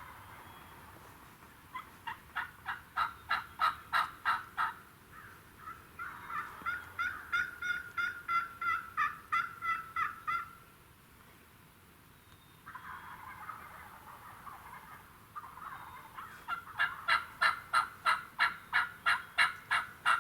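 Turkey yelps: three runs of evenly spaced yelps, about four a second, each run lasting a few seconds. Softer scratchy sounds come between the runs.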